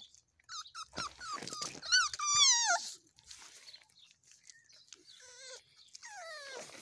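Miniature schnauzer puppy whining in a string of short, high-pitched yelps. The loudest is a falling whine about two and a half seconds in, and another long falling whine comes near the end.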